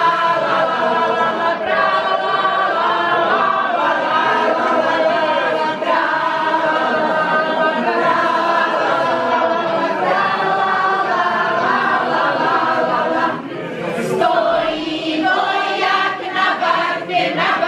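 A group of people singing a Slovak folk song together, unaccompanied. The singing breaks briefly about thirteen seconds in, then picks up again.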